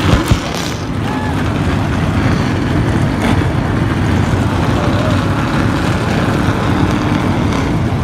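A field of NASCAR Cup Series stock cars' pushrod V8 engines running together just after being fired up: a steady, deep, loud rumble. A couple of sharp knocks come at the very start.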